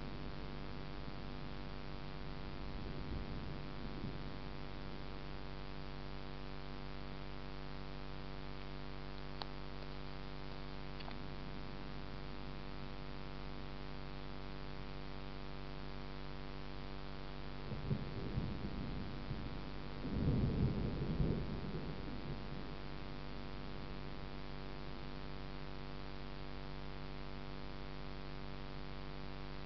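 Distant thunder rumbling low a few times, loudest and longest about twenty seconds in, over a steady electrical hum.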